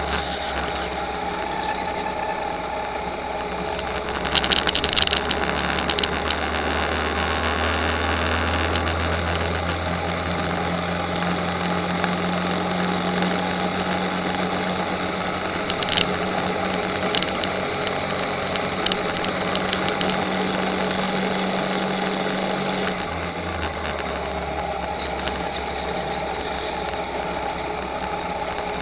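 Go-kart engine running continuously, heard onboard, with its pitch and level shifting partway through and dropping near the end. A few sharp clicks are heard along the way.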